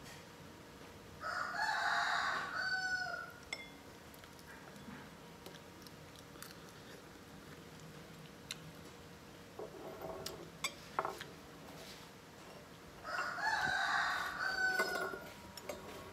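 A rooster crowing twice, each crow about two seconds long, the second about twelve seconds after the first.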